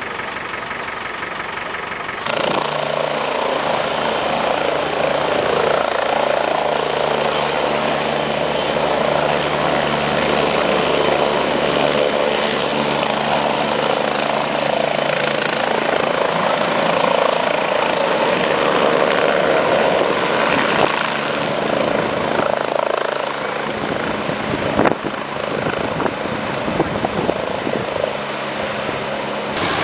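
Light helicopter running at flight power as it lifts off and hovers low: a steady engine and rotor noise that sets in abruptly about two seconds in, at a cut.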